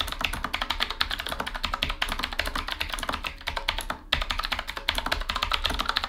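Typing on a Qwerkywriter S typewriter-style mechanical keyboard with Cherry MX Blue switches and rounded metal-ringed keycaps: a fast, dense run of clicky keystrokes, with a brief pause about four seconds in.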